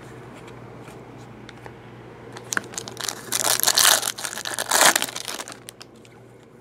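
Foil wrapper of a Bowman Chrome baseball card pack being torn open and crinkled. It starts a little over two seconds in and is loudest in two stretches around four and five seconds in.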